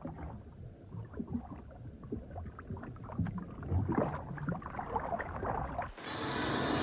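Water sloshing and gurgling, with irregular small splashes. About six seconds in it cuts suddenly to a brighter steady hiss with scattered clicks.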